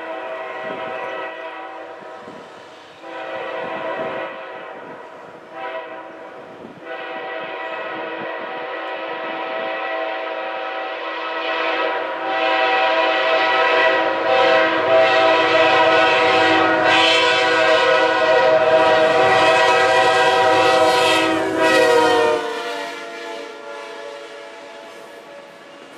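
Freight locomotive's multi-note air horn blowing the grade-crossing pattern of long, long, short, long, growing louder as the train approaches. The last long note is held until the locomotive passes about 22 seconds in, where the chord drops in pitch and stops. The autorack cars then roll by.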